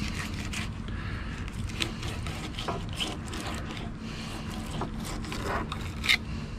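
Fillet knife cutting through a mullet and scraping on a plastic cutting board in short strokes, with a few sharp clicks, the loudest about six seconds in, over a steady low rumble.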